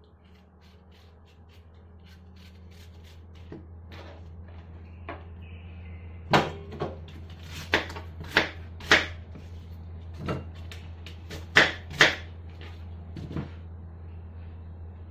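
Kitchen knife cutting an apple on a plastic cutting board. Faint clicks of paring come first; from about six seconds in, about eight sharp knocks sound as the blade strikes the board, over a steady low hum.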